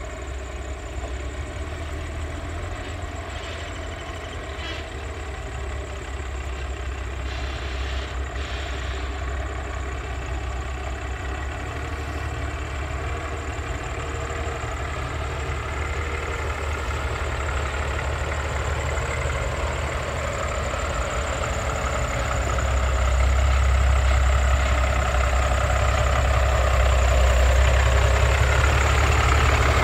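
Diesel engine of a Kenworth car-carrier semi truck running as the truck drives slowly up and draws near, growing steadily louder, with the low rumble getting heavier about three quarters of the way through.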